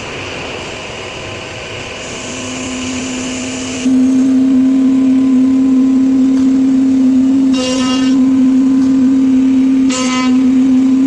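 5-axis CNC machine running: a steady hum that comes up about two seconds in and steps up sharply near four seconds into a loud steady tone, with two brief, harsher bursts near the end.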